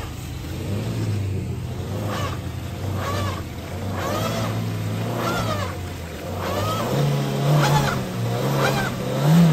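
Maruti Suzuki Vitara Brezza's 1.5-litre four-cylinder petrol engine held at raised revs as the car, bogged down in mud, tries to drive out; the revs climb about seven seconds in. A rising-and-falling squeal repeats over it about once a second.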